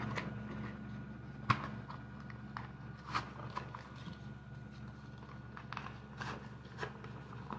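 Tan polymer 30-round PMAG magazines clicking and knocking as they are handled and pushed into the nylon and shock-cord pouches of a Taco magazine shingle: a dozen or so short, scattered clicks, the sharpest about a second and a half in. A steady low hum runs underneath.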